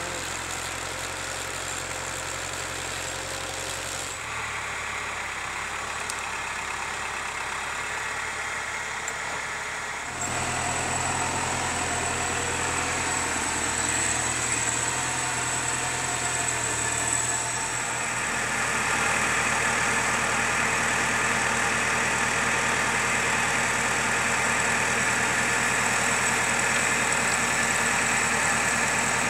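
Valtra tractor's diesel engine running steadily while it powers the crane and grapple. It gets louder in steps about four seconds in, again around ten seconds in and near two-thirds of the way through.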